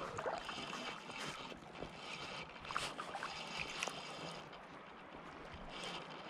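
River water flowing and lapping around the angler, a steady wash with a few faint clicks.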